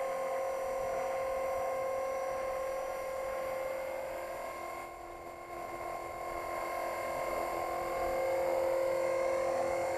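Tarot 450 electric RC helicopter's motor and rotor whine: a steady high-pitched tone with several overtones. It eases off about five seconds in and builds again near the end.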